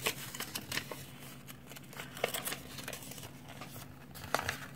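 Faint rustling and crinkling of a sheet of colored origami paper being folded and pressed flat by hand, with a few soft sharp ticks as the creases are set.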